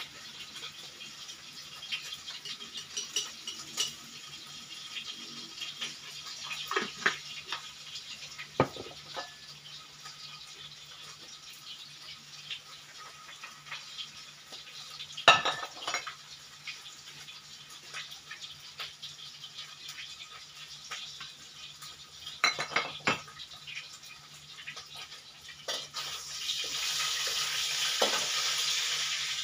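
Metal pots, lids and a spatula clattering, with a few sharp knocks, the loudest about halfway. Near the end a steady sizzle starts in the hot wok on the gas stove and grows louder.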